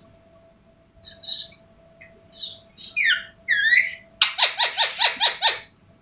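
Indian ringneck parakeet calling: a few short high chirps, then whistled notes that slide down in pitch, ending in a rapid run of about eight quick notes, each swooping downward. A faint steady hum runs underneath.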